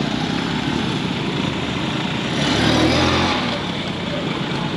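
Road traffic: steady engine and road noise of a vehicle on the move, with an engine swelling louder about two and a half seconds in and easing off after about three seconds.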